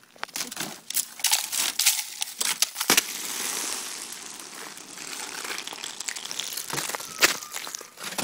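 A sheet of ice being cracked and broken off a car, crackling and crunching. There are sharp cracks about a second in and about three seconds in, a stretch of steady crunching after that, and two more sharp cracks near the end.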